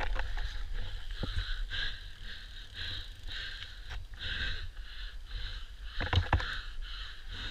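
Mountain-bike racer breathing hard after a crash, quick even breaths about twice a second. A couple of sharp knocks from the bike come about six seconds in.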